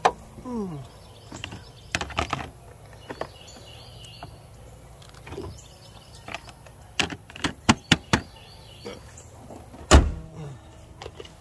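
Hood of an Infiniti G37 coupe slammed shut with one loud thump about ten seconds in. Before it come a run of sharp clicks and knocks from hands working in the engine bay.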